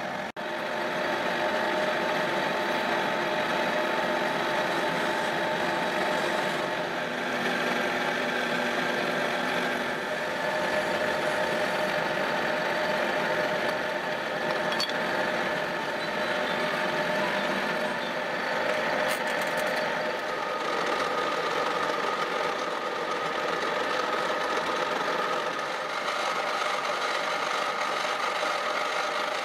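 Metal lathe running steadily, with a constant whine from its drive.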